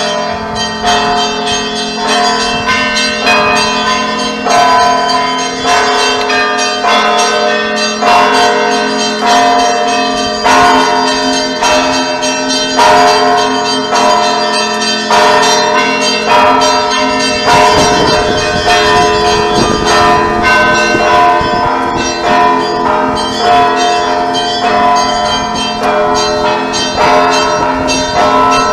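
Several church bells ringing together, struck in a steady pattern about once a second over their sustained ringing tones. A low rumbling noise joins beneath the bells a little past halfway.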